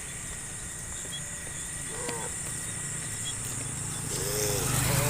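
Cattle outdoors with a steady high insect drone in the background and a couple of short calls. A low, loud cow moo swells in near the end.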